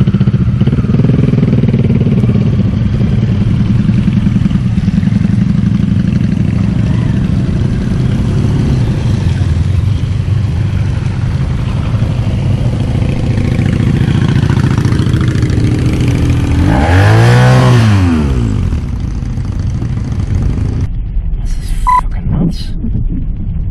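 A group of motorcycles running at low speed with a steady engine drone. About 17 s in, one bike revs up and back down, the loudest moment. Near the end the engine sound drops to a quieter hum with a few clicks.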